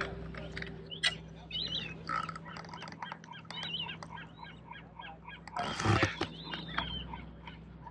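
Birds calling, a string of many short chirping calls, with one louder noise about six seconds in.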